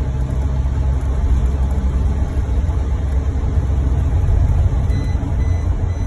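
Steady low rumble of road and engine noise heard inside a moving car's cabin.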